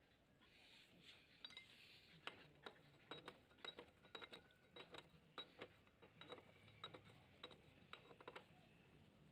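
Faint, irregular metallic clinks and taps of tools and small engine parts being handled, a quick run of them through the middle.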